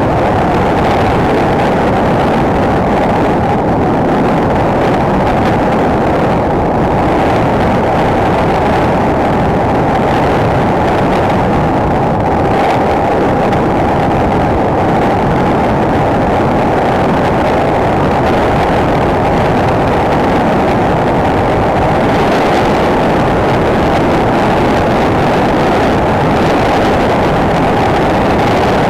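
Single-cylinder enduro motorcycle engine running steadily under way, mixed with wind rush, heard muffled through an action camera.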